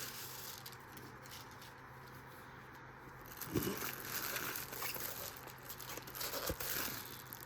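Paper wrapping crinkling as a pair of clogs is handled, starting about halfway in, with a couple of soft knocks; a low steady hum sits underneath throughout.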